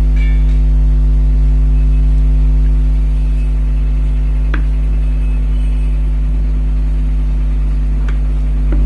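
Loud, steady electrical hum at mains frequency with its overtones, and a few faint clicks.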